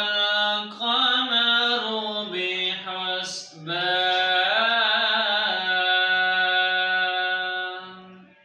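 A man's voice reciting the Quran in a melodic, chanted style, drawing out long held notes. After a brief break about three and a half seconds in, one long held note fades out near the end.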